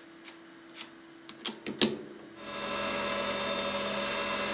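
A few light metal clicks as an aluminium part is fitted into a three-jaw lathe chuck. About two and a half seconds in, a metal lathe starts and runs steadily with a whine of several steady tones while it faces the end of the part.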